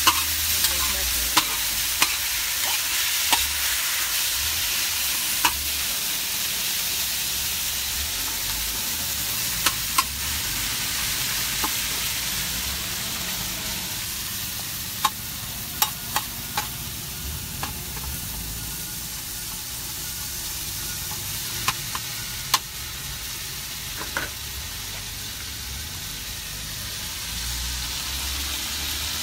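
Chopped thick-cut bacon sizzling steadily in a propane gas cooker's pan, with scattered sharp clicks and pops through it.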